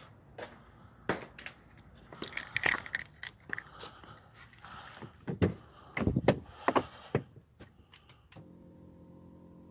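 Scattered knocks, clicks and handling noises, like a vehicle door and keys being worked. About eight seconds in, a steady low hum starts: the Ford 5.4-litre Triton V8 running evenly at idle, its misfire cured by a replacement ignition coil.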